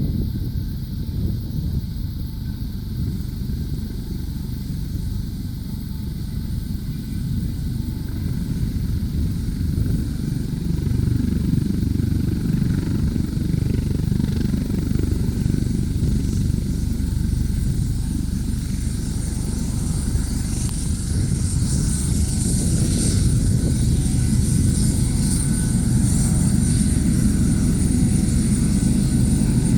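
U.S. Coast Guard helicopter running: a dense low rotor and engine rumble with a thin, steady high turbine whine on top, getting louder about ten seconds in and again past twenty seconds as the aircraft readies to lift off.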